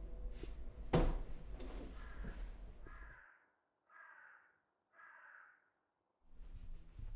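A sharp knock about a second in, then a crow cawing several times, about once a second.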